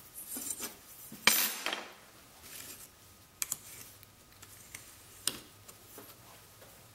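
Steel straightedge scraping and clinking against a log as it is shifted and set down. A short scraping rattle comes about a second in, then a few light clicks.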